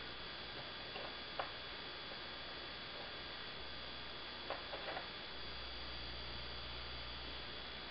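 Steady background hum and hiss with a few small, sharp clicks: one about a second and a half in and a short cluster near the middle. The clicks come from female header strips being pushed into a printed circuit board by hand.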